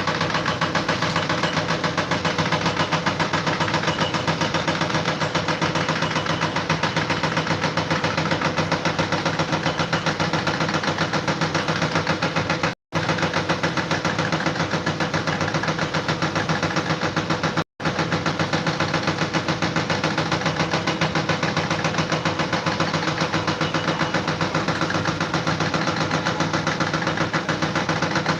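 Engine running steadily with a rapid, even pulsing rattle, cut off twice for a split second partway through.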